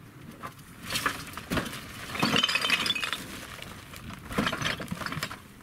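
Full plastic bin bags of rubbish being lifted and dropped into a small pickup's load bed: bag plastic crinkling and the junk inside clinking and knocking, busiest about two to three seconds in, with a few more knocks near the end.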